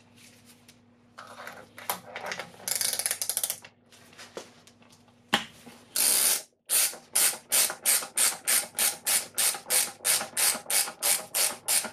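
A 14mm ratcheting wrench clicking as it backs the top nut off a front strut shaft, the shaft held still with a 5mm hex wrench. Short uneven runs of clicks come first, then from about halfway in a steady train of about three ratchet strokes a second.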